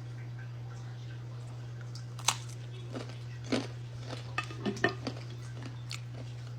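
Cutlery clicking and tapping on a container, a scattering of sharp clicks with the loudest about two seconds in and a cluster of smaller ones a second or two later, over a steady low hum.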